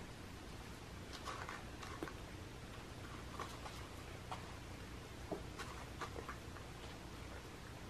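Two cats crunching dry kibble from paper cupcake liners: faint, irregular small crunches and clicks, over a low steady hum.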